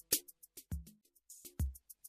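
Background music with a sparse beat: deep kick-drum thuds about once a second between short crisp high hits.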